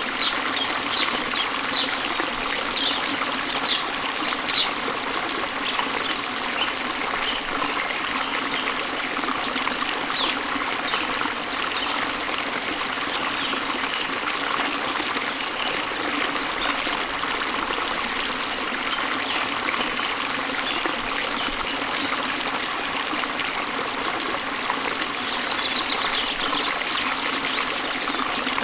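Steady rush of water falling and running over a waterfall, with small birds chirping in short quick notes, most often near the start, briefly around the middle and again near the end.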